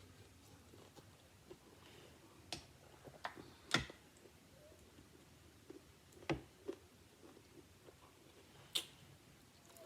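Quiet eating sounds from someone chewing rice and sausage: about six sharp, scattered clicks and smacks, the loudest a little before four seconds in.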